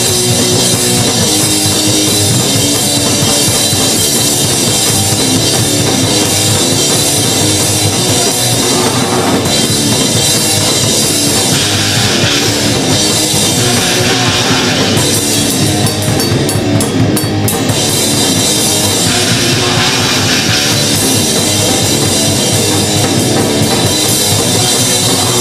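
Punk band playing a song on a demo recording, loud and dense throughout, driven by a drum kit.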